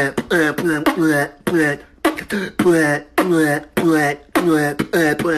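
A voice beatboxing: a quick, even run of short beat syllables with clicky onsets, about three a second.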